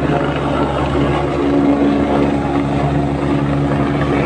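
AgustaWestland AW109 light twin-turbine helicopter coming in to land, its main rotor chopping steadily over the engines' hum. The hum grows stronger about a second and a half in as it settles toward the ground.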